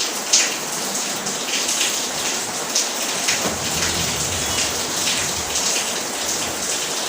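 Steady rain hiss, with light clicks and taps scattered throughout.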